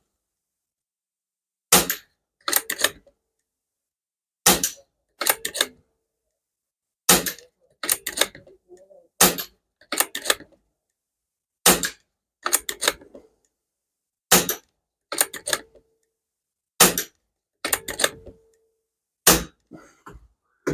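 Gamo Fox PCP air rifle fired eight times, one shot about every two and a half seconds, emptying the magazine. Each sharp crack is followed under a second later by a second click or clank, some with a short metallic ring.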